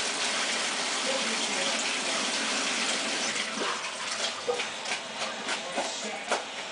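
Water running from a kitchen tap into the sink as a pot is rinsed. About halfway through, the flow thins and gives way to light knocks and clatter of the pot against the sink.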